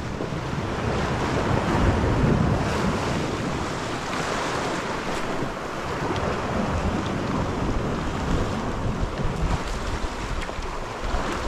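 Sea waves washing against a rocky shore, with wind buffeting the microphone; the noise swells and eases, loudest about two seconds in.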